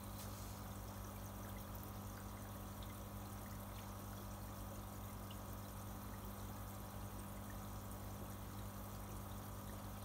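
Steady running, trickling water in an indoor fish tank, with a low steady hum underneath.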